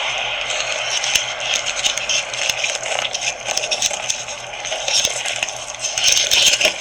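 Steady scraping and rustling noise with many small clicks and rattles throughout.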